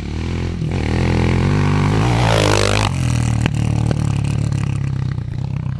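Kawasaki KLX700R dirt bike engine revving hard under acceleration, its pitch climbing then dropping sharply about three seconds in, before the sound cuts off suddenly.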